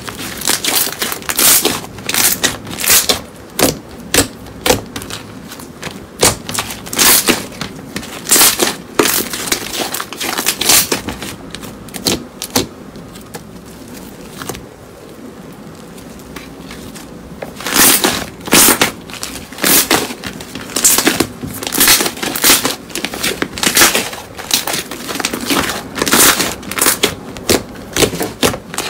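Thick white foam slime being squeezed, stretched and poked by fingers, giving irregular sharp pops and crackles as trapped air bursts out, several a second, easing off for a few seconds around the middle.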